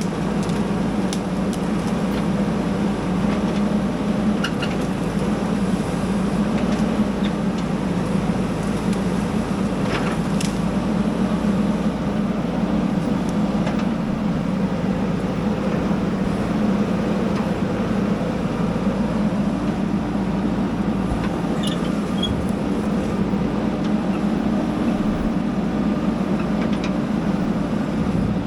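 Diesel engine of a JCB backhoe loader running steadily at a constant pitch, with a few faint clicks and knocks over it.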